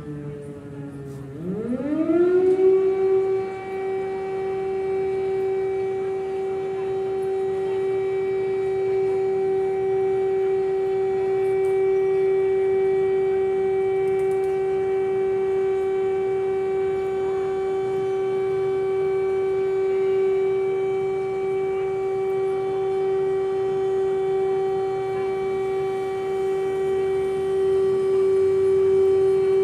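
Civil defence air-raid siren sounding in a test. It winds down at first, then about a second and a half in rises quickly and holds one steady, unbroken tone.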